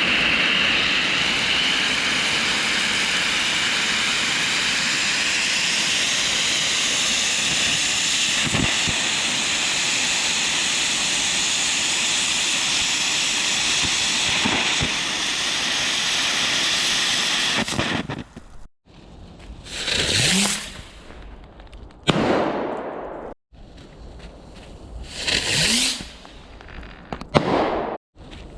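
Wood fire crackling and hissing steadily; about two-thirds of the way through it gives way to a few separate loud surges split by abrupt cuts.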